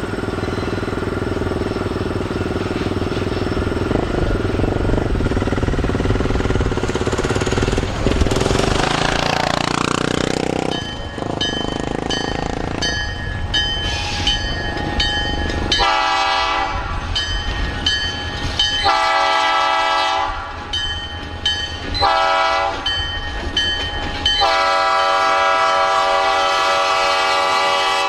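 EMD SD40-2 diesel-electric locomotive rumbling as it approaches. About halfway through it sounds its air horn in the grade-crossing pattern: two long blasts, a short one, then a long one held as it reaches the crossing.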